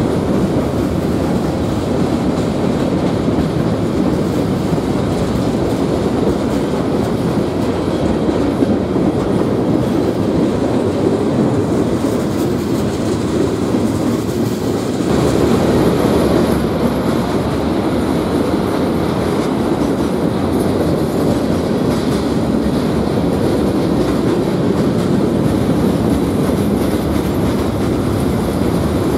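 Freight cars rolling past at close range: a steady, continuous rumble of steel wheels on the rails, getting a little louder about halfway through.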